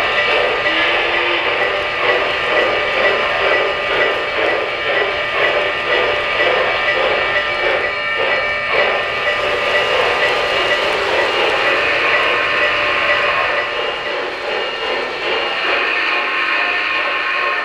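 O-scale three-rail model trains running: a steady rumble and whir of the wheels and motors on the track as a Southern Pacific Daylight steam locomotive and its passenger cars pass, with steady high tones running through it.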